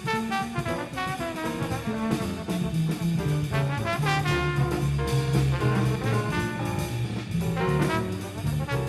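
Jazz trombone improvising a solo in quick running lines of eighth notes.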